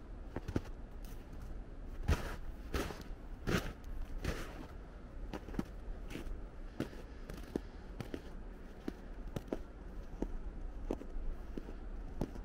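Footsteps crunching in snow, about one step every 0.7 seconds, louder in the first half, with fainter crackles between steps.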